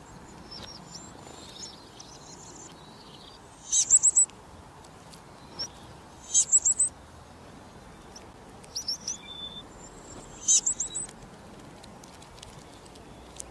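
Field cricket chirping: four chirps of three or four quick high-pitched pulses each, about two seconds apart, with fainter high calls and a low hiss in between.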